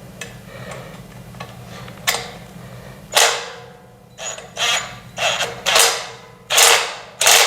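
An assembly screw being tightened into the TV stand's frame with a hand tool: a series of short creaking, scraping strokes, about two a second, starting about three seconds in.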